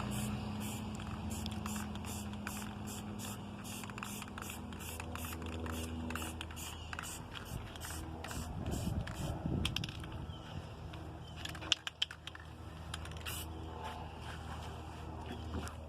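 Aerosol spray paint can spraying a trailer hitch in quick, repeated short bursts, with a low steady hum underneath.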